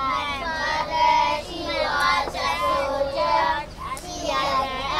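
A child singing a melody in held, wavering notes with short breaks between phrases.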